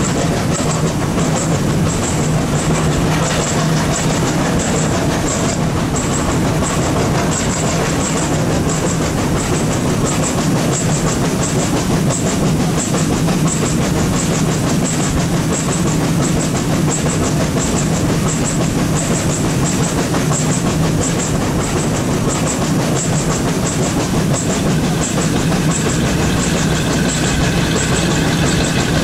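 HO-scale model FS class 740 steam locomotive running with a goods train: a steady running hum with a regular light clicking of wheels over the track, about twice a second. About 25 seconds in, a higher steady hum joins in.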